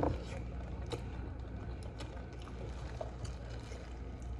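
Faint chewing and wet mouth clicks from eating spicy noodles, a few small clicks over a steady low hum.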